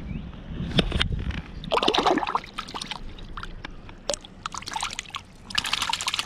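Shallow river water splashing in short bursts, three of them about 1, 2 and 6 seconds in, as a small brown trout thrashes while being landed and handled at the surface.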